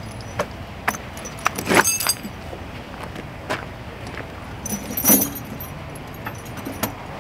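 Steel triple tire chains clinking and jangling as they are handled and tucked onto a semi truck's dual tires, in irregular clinks with louder jangles about two and five seconds in, over a low steady hum.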